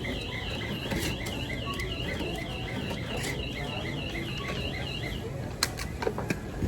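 Electronic alarm sounding a rapid, even warble that stops abruptly about five seconds in, followed by a few sharp clicks.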